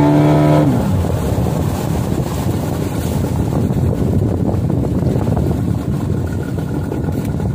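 Small outboard motor running under way, with wind buffeting the microphone and water rushing past the hull. A clear pitched tone in the engine sound drops away within the first second, leaving a steady rough drone.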